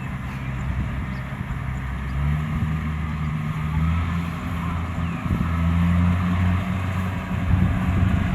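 Kubota DC-70 combine harvester's diesel engine running steadily, its note stepping up and getting louder about two seconds in.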